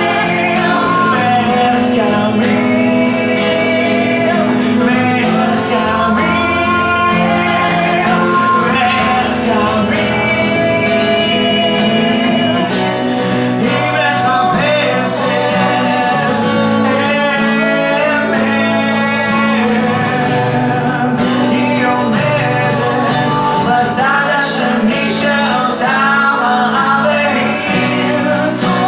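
Live acoustic folk duet: a woman and a man singing in Hebrew together over two strummed acoustic guitars.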